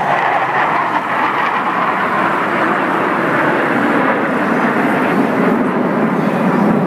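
Blue Angels F/A-18 Hornet jets in formation flight, a loud, steady jet-engine roar that sinks gradually lower in pitch as the formation passes.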